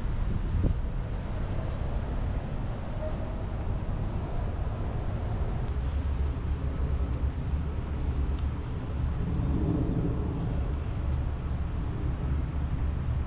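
Steady low rumble of road traffic, with a few faint clicks.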